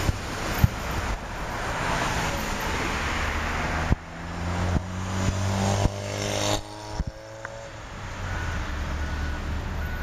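Road traffic: cars passing close by. A rush of tyre noise swells over the first couple of seconds, then a vehicle's engine hum falls slightly in pitch as it goes by, with a few sharp knocks along the way.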